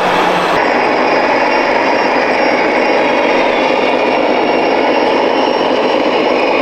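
Steady, dense background din of a busy indoor exhibition hall, with the running noise of RC model vehicles mixed in; the sound changes abruptly about half a second in, at a cut.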